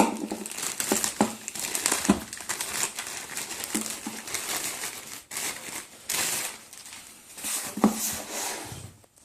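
Plastic packaging bag being handled and crinkled while a parcel is unpacked, a run of rustling with sharp crackles every second or so.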